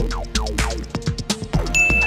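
Background electronic music with a steady beat and a repeating chiming phrase.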